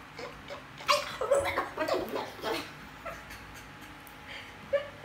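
A small puppy whining and yipping in short bursts, mostly from about one to two and a half seconds in, with a few more brief cries near the end.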